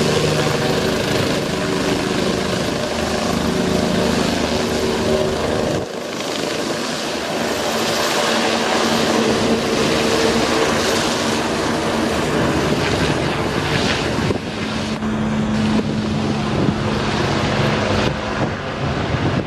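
Bell 429 twin-turbine helicopter running close by: a dense rushing rotor noise with a few steady tones in it.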